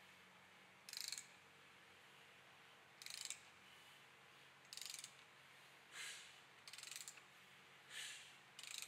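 Ratchet wrench clicking in short bursts on its back-strokes, seven times, while it turns the crankshaft of an assembled LS short block by the crank snout bolt.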